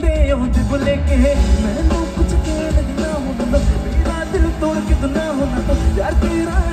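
Live band playing a Bollywood song through stage loudspeakers: singing over electric guitars, keyboard, drums and heavy bass.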